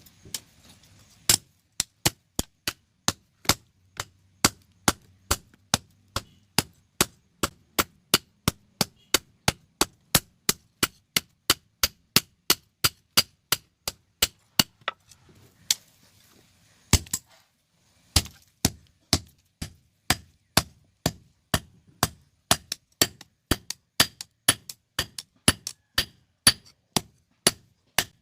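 Blacksmith's hammer striking metal on an anvil in a steady run of ringing blows, about two to three a second, with a short pause a little past halfway before the hammering resumes slightly faster.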